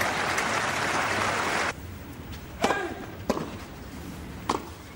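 Crowd applause that cuts off abruptly about a second and a half in. Then come three sharp hits of tennis rackets striking the ball, about a second apart, over a quiet crowd.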